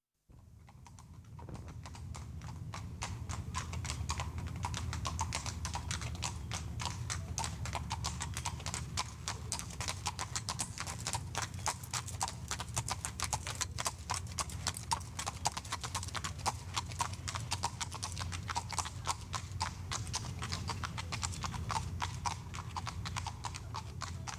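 Hooves of several horses clip-clopping on concrete as they pass: a dense, overlapping run of hoof strikes that builds over the first few seconds, over a low steady rumble.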